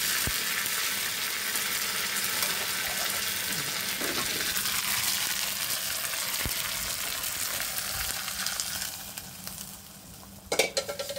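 Tempering of cinnamon, cloves, fennel and curry leaves with chopped greens sizzling hard in hot oil in a small tadka pan, the hiss dying away about nine seconds in. A brief metallic clatter near the end.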